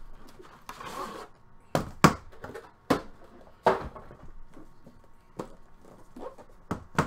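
A cardboard outer box sliding off an aluminium briefcase, followed by about six sharp knocks and clunks as the metal card case is handled and set down on a wooden table.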